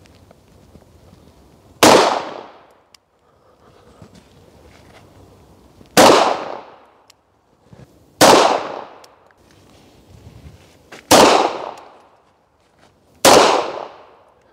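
Five pistol shots from a 9 mm P-83 at an unhurried, uneven pace, each a sharp crack with a short echoing tail.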